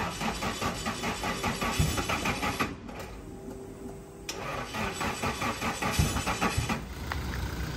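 Starter motor cranking the Nissan Silvia S13's SR20 engine in two tries, a quick, even chug of compression pulses, with a pause of about a second and a half between them. The engine is hard to start after ten days standing.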